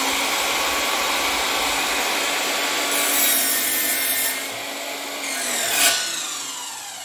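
Battery-powered Worx saw cutting through a piece of wood, its blade running steadily through the cut. A sharp peak comes near six seconds, after which the motor winds down with falling pitch.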